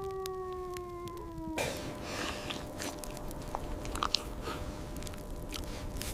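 A long drawn-out howl, slowly falling in pitch, cuts off about a second and a half in. It gives way to a person chewing and biting food, with small crunching clicks.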